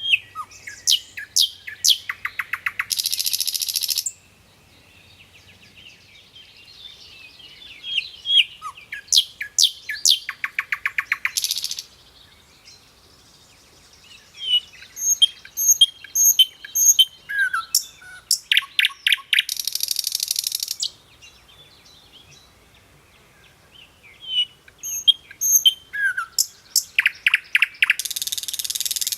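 A songbird singing its song over and over, about every eight or nine seconds. Each song is a run of sharp, quick chirps and whistles that ends in a rapid rasping rattle lasting about a second.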